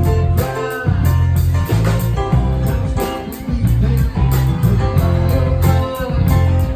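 Live band playing an instrumental passage: guitar over bass, with a steady drum beat.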